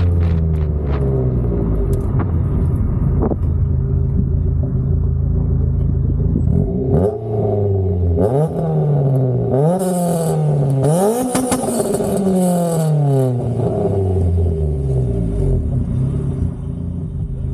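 Honda CRX's four-cylinder engine slowing to a stop, its note falling, then idling. About halfway through it is revved in several quick blips, each rising and falling in pitch, before settling back to a steady idle.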